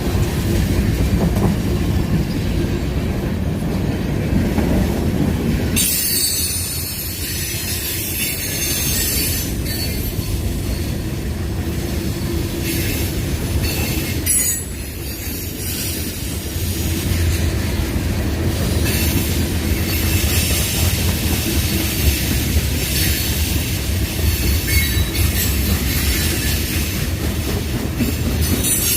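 CSX freight train rolling past, its rail cars clattering with wheel squeal. A deep rumble fills the first six seconds, then a higher rolling hiss with screeching wheels takes over, briefly easing just before halfway.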